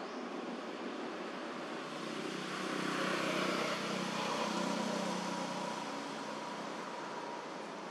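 A motor vehicle passing, its engine and tyre noise swelling up and easing off in the middle, over a steady background hiss.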